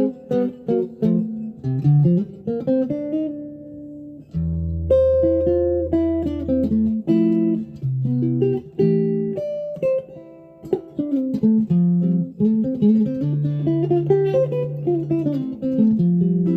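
Solo Fender guitar playing a practice piece, moving between chords and single-note lines. About four seconds in, a chord with a deep bass note rings on for a couple of seconds.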